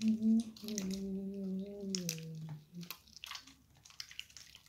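A boy humming a held note for about two and a half seconds, dropping in pitch at the end, over the sticky clicks and squishes of slime being kneaded by hand; the slime clicks carry on alone afterwards.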